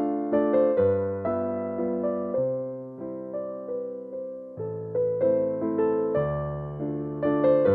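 Background music: a gentle piano or electric piano melody over slow bass notes, each note struck and fading.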